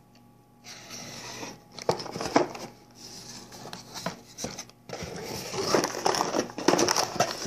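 A cardboard mailer box being opened by hand: the cardboard lid and flaps scrape and rustle in irregular bursts, loudest around two seconds in and again near the end.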